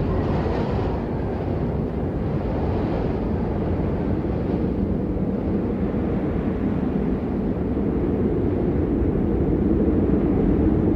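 Steady low rumble of storm noise, with no distinct hits, growing a little louder near the end.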